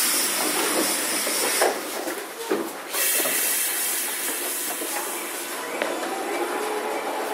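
Compressed air hissing out of a Keifuku Randen Mobo 21 retro tram's air system just after it has stopped, in two loud bursts, the second fading away over a few seconds. A faint steady hum comes in near the end.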